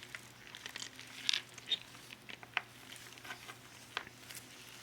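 Faint, scattered clicks and light taps of small plastic model-kit parts being handled, over a faint low steady hum.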